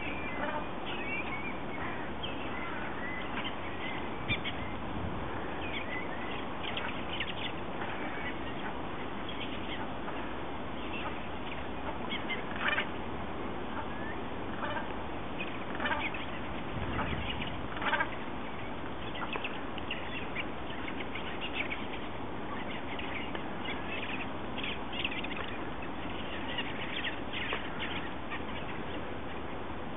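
Mixed flock of waterbirds calling: black-tailed godwits, brent geese and ducks, with short calls scattered irregularly over a steady background hiss and a few louder calls midway.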